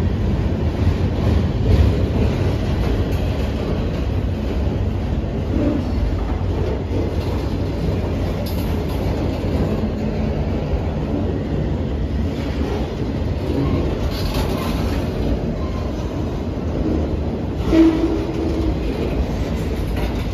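Freight train of enclosed autorack cars rolling past close by: a steady rumble of steel wheels on the rails, with one brief louder noise near the end.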